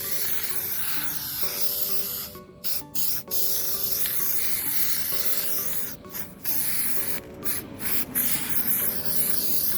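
Aerosol can of heavy-duty headliner spray adhesive hissing in long sprays, stopping briefly several times, over background music.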